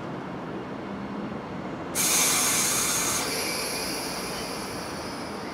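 Electric multiple-unit train standing at the platform, humming steadily; about two seconds in a sudden hiss of released compressed air starts, loudest for about a second and then tailing off.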